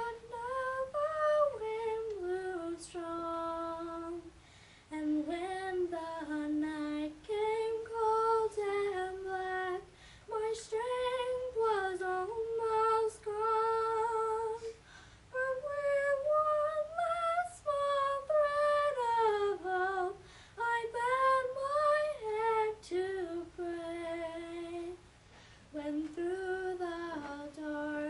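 A teenage girl singing a slow solo melody unaccompanied, in phrases with short breaths between them.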